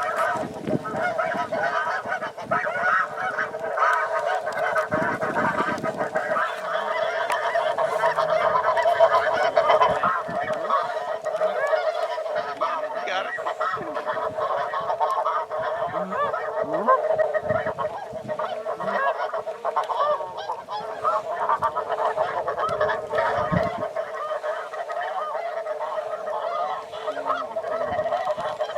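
A dense, unbroken chorus of many snow geese calling at once, their overlapping honks massed into one steady din.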